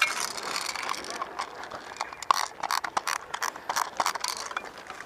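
Fast, irregular mechanical clicking and clattering.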